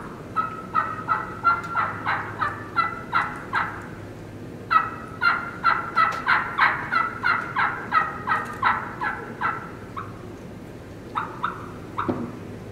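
A turkey caller imitating a hen turkey's plain yelp: two long runs of evenly spaced yelps, about three a second, each note breaking from high to low, the second run longer, then a couple of single notes near the end.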